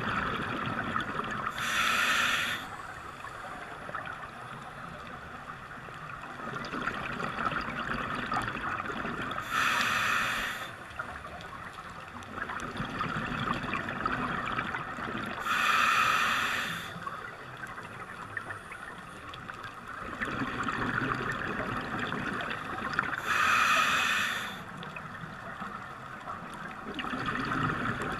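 Scuba diver breathing through a demand regulator underwater: slow hissing inhales, each followed by a loud, roughly one-second rush of exhaled bubbles, four times, about every six to seven seconds.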